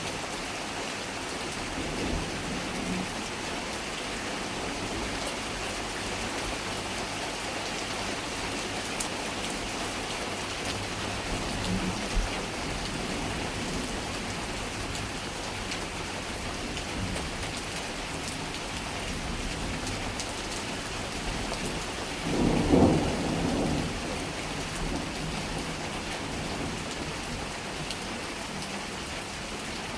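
Thunderstorm: steady heavy rain, with a short, loud rumble of thunder about three-quarters of the way through and fainter low rumbles earlier.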